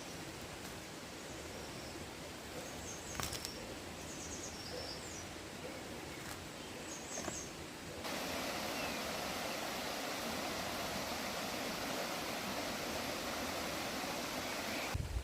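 Steady outdoor rural ambience: an even rushing noise with a few faint bird chirps in the first half. About halfway through, the rushing noise jumps louder and stays even until it cuts off near the end.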